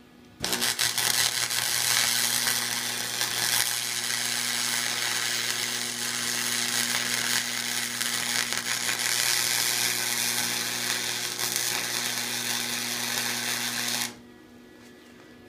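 Electric arc welder laying a weld on a steel billet stack: a continuous crackling sizzle over a steady low hum, starting about half a second in and cutting off sharply after about fourteen seconds.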